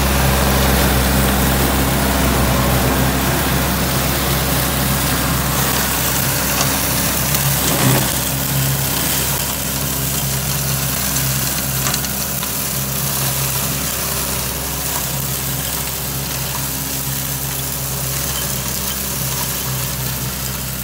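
John Deere 3720 compact tractor's diesel engine running steadily under load while driving a Fehrenbach Bingo 1.60 flail mower through tall grass, the flails adding a constant rushing noise over the engine. There is one brief louder knock about eight seconds in, and the sound grows gradually fainter as the tractor moves off.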